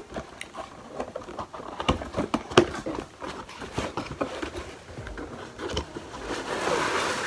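Cardboard box being opened by hand: scattered clicks, taps and scrapes of the lid and flaps, with a stretch of rustling near the end.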